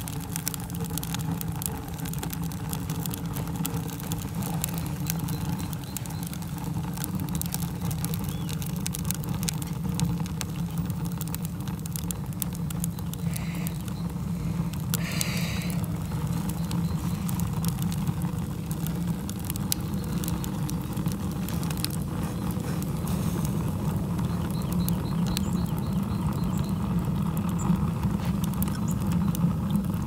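Wood fire burning in a rocket stove's firebox: a steady low rush of the draft with frequent sharp crackles and pops from the burning wood. Two brief higher-pitched sounds come about halfway through.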